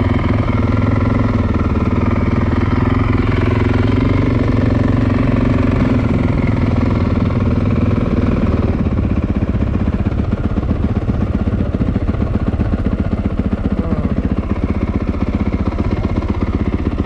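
Honda CRF450R's single-cylinder four-stroke engine running at low revs as the bike rolls to a stop, then settling into a steady idle with quick, even pulses from about halfway through.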